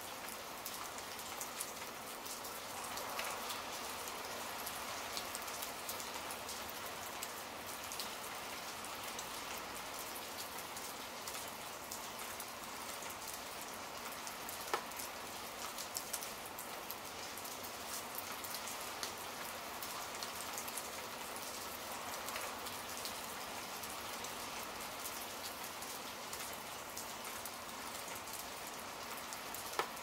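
Steady rain falling on a surface, heard as an even hiss full of small drop clicks, with a few sharper single drops.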